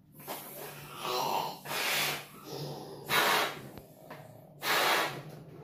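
A man blowing up a balloon by mouth: three hard puffs of breath, about a second and a half apart, with breaths drawn in between.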